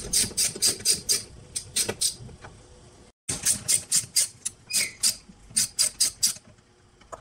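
Ratchet wrench clicking quickly, about five clicks a second, in two runs with a short break, as a 10 mm bolt holding the tail light is undone.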